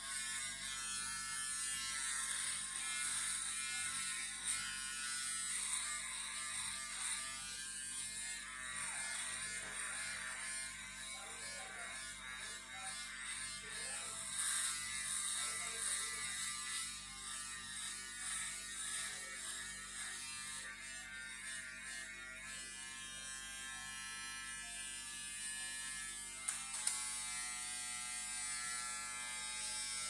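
Cordless electric beard trimmer buzzing steadily as it cuts through beard stubble on the cheek and chin, with a couple of short clicks near the end.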